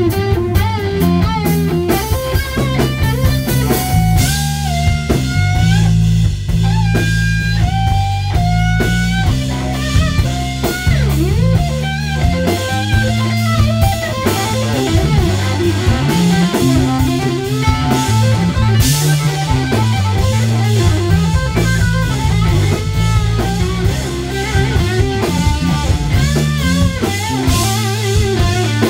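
Live rock band playing: a Telecaster-style electric guitar plays melodic lead lines with held and bending notes over a drum kit.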